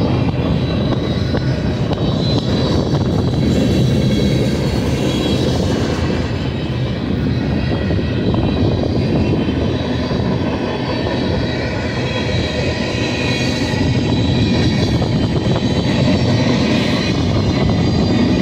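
Cars of a passing BNSF freight train rolling by: steady noise of steel wheels running on the rails.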